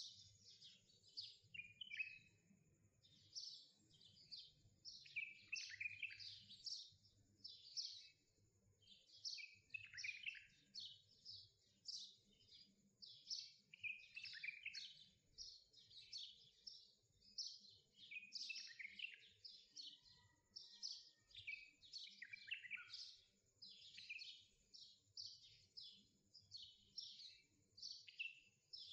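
Faint birdsong: many small birds chirping and twittering without a break, in quick high notes that often slide downward in pitch.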